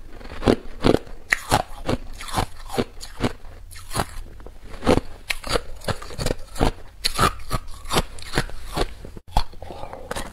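Hard clear ice cubes bitten and chewed close to a clip-on microphone: a steady run of sharp, irregular crunches, a few a second.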